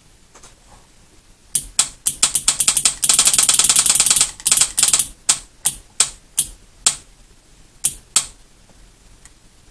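Marine starter solenoid clicking on the bench as its test switch is flicked on and off, which shows the solenoid is good. The clicks start about one and a half seconds in, come in a fast run of rapid clicks near the middle, then slow to single clicks and stop about two thirds of the way through.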